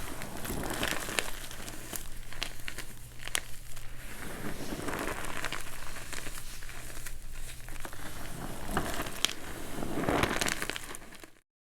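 Dyed, reformed blocks of MagKing gym chalk being crushed, crunching and crackling with many sharp snaps as they crumble; the sound cuts off suddenly near the end.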